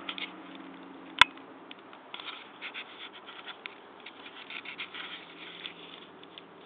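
Handling noise on a handheld camcorder: a single sharp click a little over a second in, then a rapid patter of small clicks and rubbing from about two seconds in, fading out near the end.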